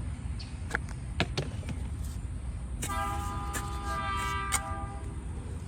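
A horn sounds one steady note for about a second and a half, about three seconds in. A few short knocks come before it, over a low rumble of wind on the microphone.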